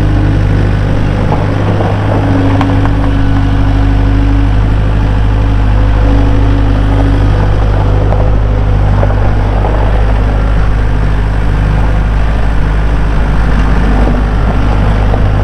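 2012 Bobcat S185 skid steer's four-cylinder turbo diesel engine running steadily at an even speed.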